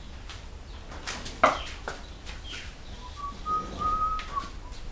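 A sharp knock about a second and a half in, with a few lighter clicks, then several short whistled notes near the end.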